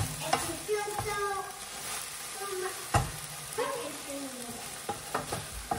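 Chicken frying and bubbling in a hot pan, with a utensil stirring and knocking against the pan now and then.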